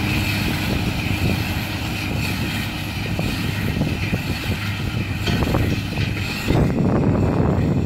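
Tractor engine running steadily under load, pulling a CLAAS Rollant 455 Uniwrap combined round baler-wrapper as it picks up and bales a swath of cut ryegrass, the baler's machinery running along with it. About six and a half seconds in, the sound turns duller and rougher.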